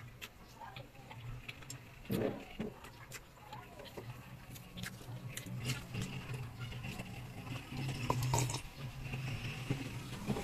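Close-up eating sounds: wet chewing and lip smacks on a mouthful of rice and fried fish, with small clicks and one louder smack about two seconds in. In the second half come sips of coffee from a mug.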